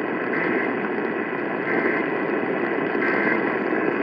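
Emergency Alert System end-of-message data bursts: three short, buzzy two-tone digital bursts about a second apart, marking the end of the alert, heard through steady AM radio hiss and static.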